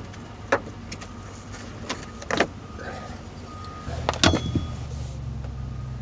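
Scattered clicks and knocks of plastic trim and metal fasteners being handled and pulled loose around a car's seatbelt upper mount, with a sharper metallic clink that rings briefly about four seconds in, over a low steady hum.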